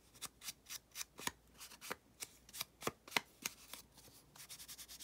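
Foam ink blending tool dabbed and swiped along the edges of a small piece of kraft paper, inking it blue: quick, irregular papery taps and scuffs, about three a second, lighter and closer together near the end.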